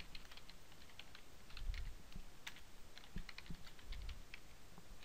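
Computer keyboard being typed on: a run of quick, uneven key clicks as text is entered, with a couple of soft low thumps about two and four seconds in.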